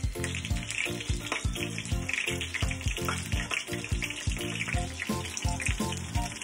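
Battered chicken pieces shallow-frying in oil in a small rectangular pan, sizzling and crackling, strongest in the first half. Background music with a steady beat plays under it.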